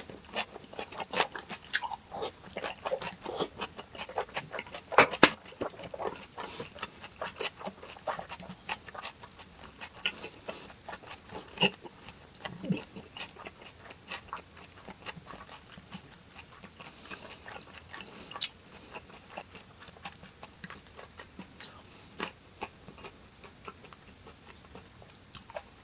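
Close-miked mouth sounds of eating hongeo samhap: biting, wet chewing and crunching, with a few louder sharp crunches in the first half.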